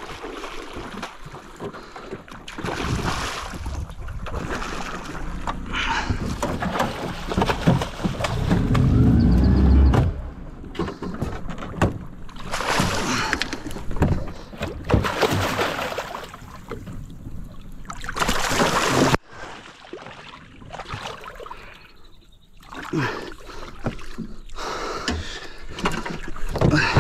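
A large carp, shot with a bowfishing arrow, thrashing and splashing at the water's surface as it is hauled to the side of an aluminium boat on the arrow line, with irregular bursts of splashing and some knocks.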